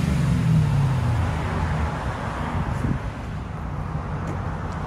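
2011 Ford Crown Victoria's 4.6-litre V8 running through a new Borla Touring cat-back dual exhaust with an H-pipe. A rev falls away over the first two seconds, then the engine settles to a quieter, steady idle.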